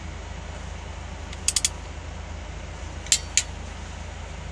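Sharp metallic clicks from a long socket wrench working on a Mitsubishi 4D56 diesel's cylinder head: three quick clicks, then two more about a second and a half later, over a steady low hum.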